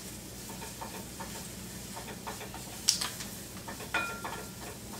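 Wooden spoon stirring and scraping onions and garlic sautéing in a skillet, with a light sizzle and scattered taps of the spoon on the pan. A sharp knock about three seconds in.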